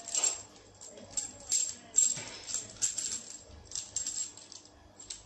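A handful of long steel engine bolts clinking and jingling against each other as they are shuffled in the hands, in a series of short rattles, the loudest about two seconds in.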